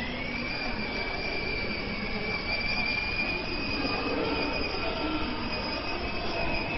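Electric drive motor and gearbox of a children's battery-powered ride-on toy car whining as it drives along: a high, steady whine that climbs briefly at the start and then holds its pitch.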